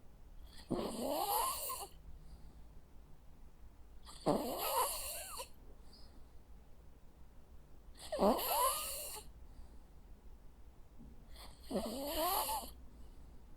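Jack Russell Terrier snoring in its sleep: four snores, about three and a half seconds apart, each rising in pitch as it goes.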